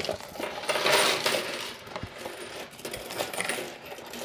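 Loose coins pouring out of a cardboard honor box and clattering onto a table. A dense rush of clinking comes about a second in, then scattered single clinks.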